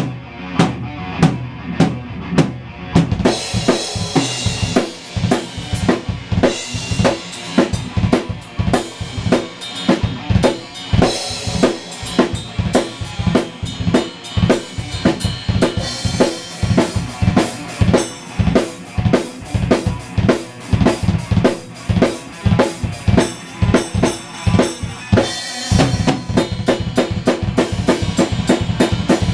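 Drum kit played in a steady rock beat, with bass drum and snare strikes at an even pace and pitched guitar notes between them. Near the end a sustained guitar part comes back in over the drums.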